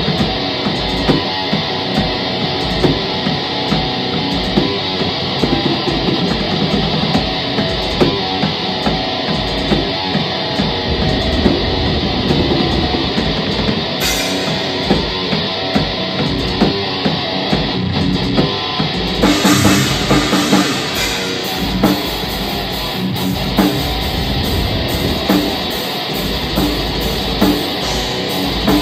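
Black metal band playing live: distorted electric guitars over a drum kit, loud and dense throughout. The music shifts about 14 seconds in and again about 19 seconds in.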